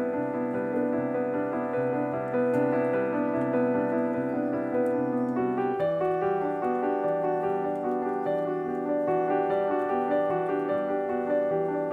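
Background piano music: soft sustained chords, with the harmony changing about six seconds in.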